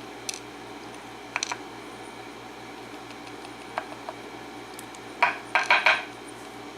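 Small metal lock pins from a disassembled pin-tumbler lock clinking as they are dumped out and handled on a hard surface: a few scattered single clicks, then a quick cluster of clicks near the end.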